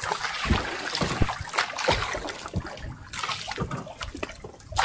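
Sea water lapping and splashing against the hull and outrigger of a small outrigger fishing boat, in irregular slaps.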